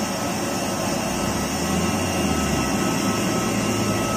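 Steady airport-ramp machinery noise during aircraft refuelling: a continuous jet-like whine with thin steady tones over a low engine rumble. The rumble swells from about a second in.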